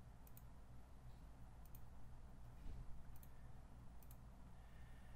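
Near silence: room tone with a low steady hum and a few faint clicks.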